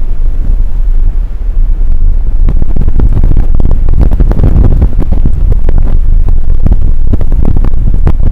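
Gale-force wind buffeting the microphone: a loud, low rumble with crackling gusts, growing stronger about two seconds in.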